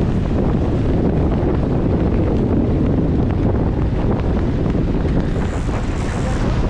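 Strong wind buffeting the microphone of a camera on a Sonar keelboat under sail, over water rushing and splashing along the hull.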